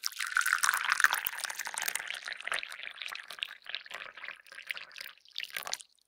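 Hot coffee poured into a cup: a steady stream at first that thins into a broken trickle and drips, then stops shortly before the end.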